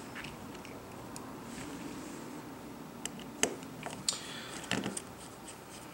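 Quiet handling sounds of a phone repair: a few small, sharp clicks and taps of a screwdriver and tiny metal parts, clustered in the second half, the sharpest about three and a half seconds in.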